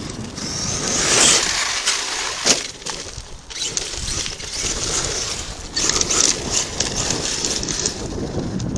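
Dirt and small rocks crunching in irregular bursts, with one sharper crack about two and a half seconds in.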